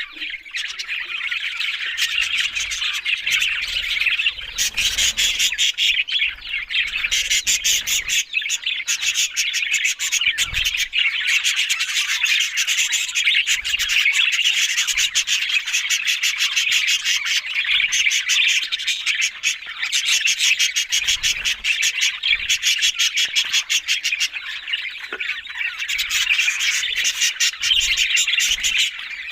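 Budgerigars chirping and warbling in a dense, unbroken chatter of quick high notes with occasional squawks.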